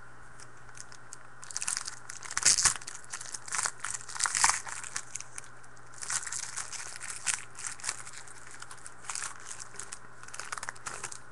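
Foil wrapper of a trading-card pack being torn open and crinkled by hand, in three spells of crackling, loudest about two to five seconds in.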